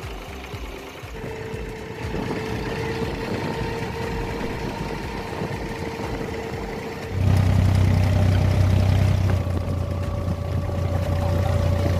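Abra water-taxi engines running steadily at the dock. About seven seconds in, this gives way to a louder, deeper steady diesel engine hum from on board a wooden abra under way.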